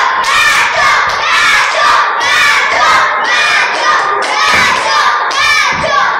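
A group of young girls shouting and cheering together, a dense run of overlapping high-pitched cries coming in quick repeated pulses, as if egging on a fight.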